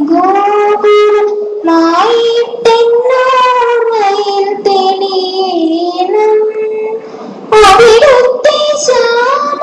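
A girl singing solo, unaccompanied, in long held notes with melodic turns. She pauses briefly about seven seconds in, then comes back louder with a wavering vibrato.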